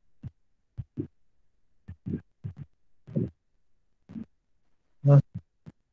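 Short, broken fragments of a man's voice, a dozen or so brief muffled bursts at irregular intervals with dead silence between them, the loudest about five seconds in.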